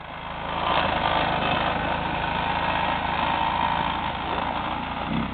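ATV engine run under steady throttle, getting louder in the first second and then holding steady, as the machine pushes on through ice that keeps breaking under it.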